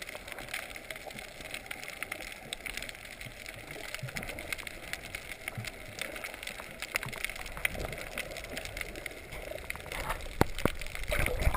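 Underwater ambience over a coral reef, heard through a camera housing: a steady water hiss with many scattered sharp clicks and crackles, getting louder with low rumbling near the end.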